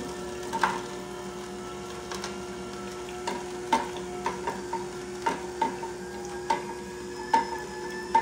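AMZCHEF horizontal masticating slow juicer running with a steady motor hum while its auger crushes beetroot pressed down the chute. Irregular sharp cracks and snaps, roughly one or two a second, come as the pieces break up.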